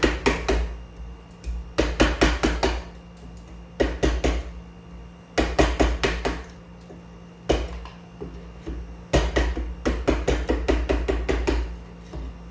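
A chisel being struck in quick runs of light mallet taps as it chops into the wood, in six bursts of several sharp taps each, with dull thuds through the bench. A steady low hum underneath.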